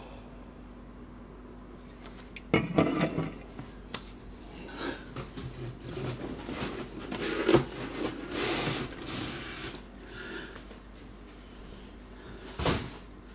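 Rummaging inside a cardboard box of beer cans: cardboard and packing scrape and rustle in bursts, with a sharp knock of a can being handled about seven and a half seconds in.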